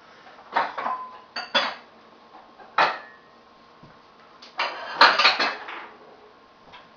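Ceramic dishes clinking and clattering as they are stacked onto a kitchen cupboard shelf. A few separate knocks, some ringing briefly, come first, then a quick run of clatters about five seconds in.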